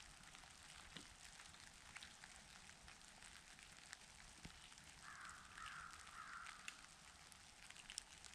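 Near silence in the woods, broken about five seconds in by a bird giving a short run of faint, harsh calls, one after another for under two seconds.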